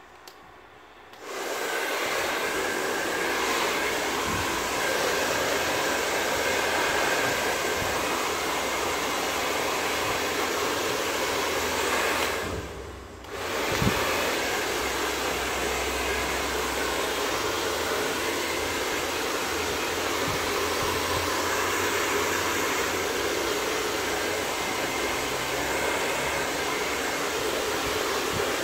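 Hand-held hair dryer switches on about a second in and blows steadily. It drops out briefly a little before the middle, then runs on.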